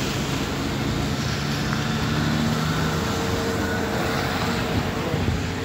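Steady drone of a running vehicle engine.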